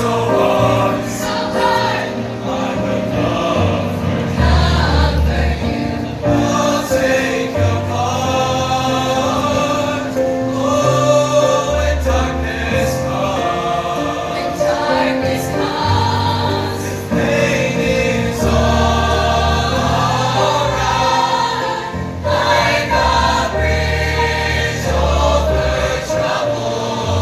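A choir singing a song with instrumental accompaniment, the low notes of a bass line changing every second or two under the voices.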